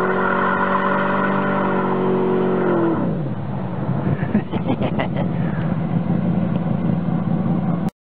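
Hot rod engine held at high revs while spinning its rear tyres in a burnout, steady in pitch, then falling sharply about three seconds in as the revs drop. It runs on rougher at lower revs with a few sharp crackles, and the sound cuts off abruptly near the end.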